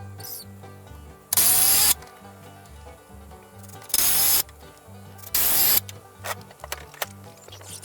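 Power drill driving screws into the wood: three short bursts of about half a second each, over background music with a steady beat.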